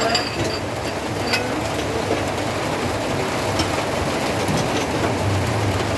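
Steady rain pouring down, with a few light clicks near the start.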